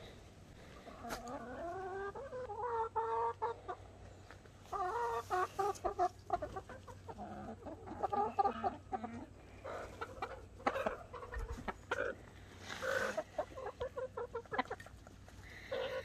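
Backyard hens clucking and calling to one another, a run of short rising-and-falling calls, with a few sharp taps among them in the second half.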